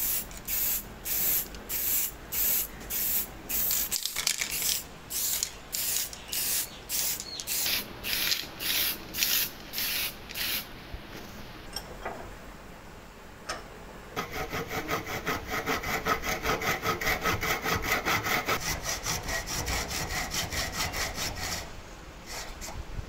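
Spray paint hissing in short repeated bursts, about one and a half a second, as a spade blade is painted; the bursts stop about eleven seconds in. After a couple of clicks, a hacksaw cuts through a wooden handle clamped in a bench vise, in quick, steady strokes that run for about eight seconds.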